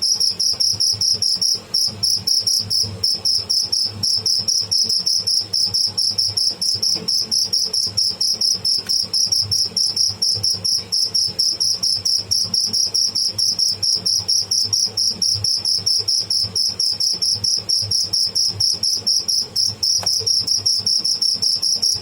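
A cricket calling close up: a loud, unbroken high-pitched trill of rapid, even pulses.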